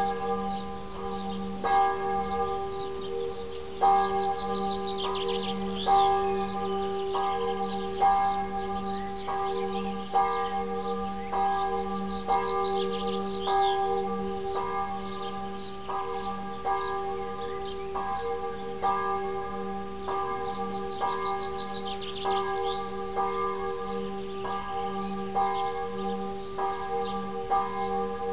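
Church bells chiming the 7 pm chimes: a steady run of strokes, more than one a second, with the bells' tones ringing on under each new strike.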